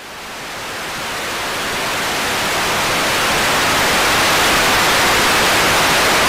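Television static hiss, growing louder over the first few seconds, then steady until it cuts off suddenly at the end.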